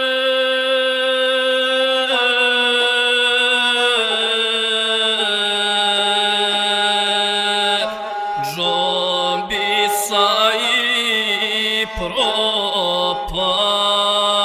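A bowed string instrument playing a slow, sustained melody over a held low note, in the style of a gusle epic accompaniment; the notes waver and slide for a few seconds past the middle.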